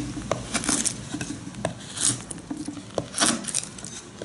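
Bushcraft knife blade cutting into wood: irregular sharp knocks and cracks as the edge bites in stroke after stroke, a few a second.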